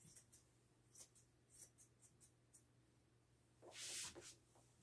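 Faint, short snips of grooming shears cutting through a poodle's curly coat, about eight in the first three seconds, then a brief louder scraping rustle about four seconds in.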